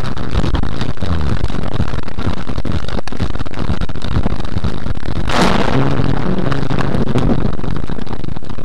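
Thunder from a nearby lightning strike overloading a car dashcam's microphone: a constant loud, distorted crackle with a sharper blast of noise about five seconds in.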